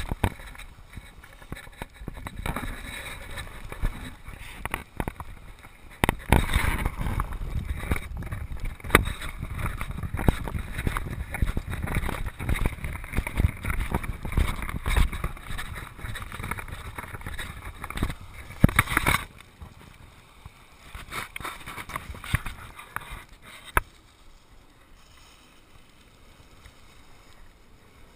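Wind buffeting the microphone of a body-worn action camera, a rumbling noise with many scattered knocks and crackles from handling and walking on sand. It eases off near the end.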